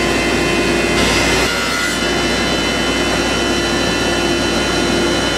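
Thickness planer running, with dust collection, as a board is fed through: the cutter head bites into the board about a second in for roughly a second, then the machine runs on steadily.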